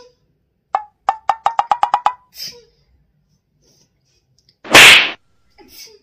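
A quick run of about ten short, pitched ticks that speed up over about a second, then, near the end, a single short, loud sneeze.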